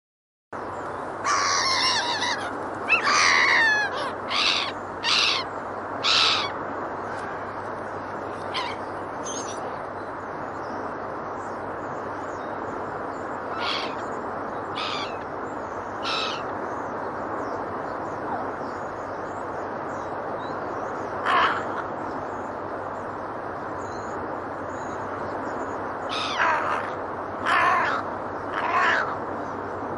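Seagulls and geese calling: a flurry of loud calls in the first few seconds, then single calls every few seconds and another short flurry near the end, over a steady background hiss.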